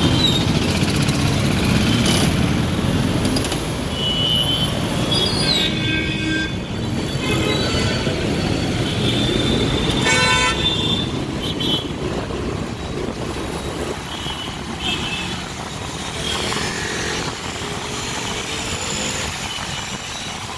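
Dense city road traffic heard from a moving two-wheeler: motorcycle and car engines running with road noise, and vehicle horns honking again and again. The longest horn blasts come about six and ten seconds in, with shorter toots scattered between.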